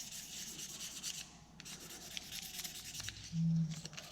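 Sandpaper of 500 grit rubbed dry by hand over the plastic scales of a Victorinox Swiss Champ pocketknife: repeated scratchy back-and-forth strokes, with a short break about a second and a half in. A brief low hum sounds near the end.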